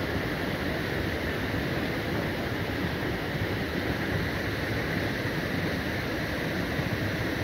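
Steady rush of water flowing through a concrete trout-farm raceway.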